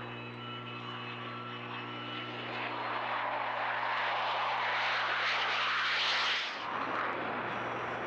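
F-15 Eagle jet fighter taking off on afterburner: jet noise that swells over a few seconds, peaks, then breaks off abruptly about six and a half seconds in.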